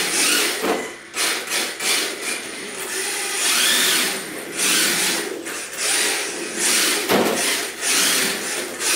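HSP 1/10 brushless RC drift car driving on a tiled floor: the brushless motor whines in repeated throttle surges, with short lulls about a second in, around four and a half seconds in and about seven seconds in, as its hard drift tyres slide across the tiles.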